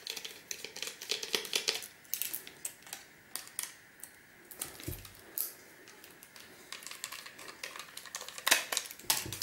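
Small precision screwdriver backing out the tiny screws that hold a circuit board inside a laptop optical drive's metal cover: light, irregular clicks and metallic ticks, with a louder clatter near the end.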